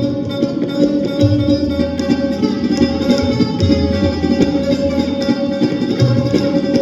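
Hindustani classical music: sarods played in rapid plucked strokes over a steady drone, with tabla accompaniment including deep, ringing bass-drum strokes every second or two.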